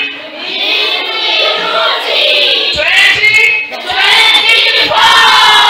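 A group of girls' voices singing together in chorus, with notes held and drawn out near the end.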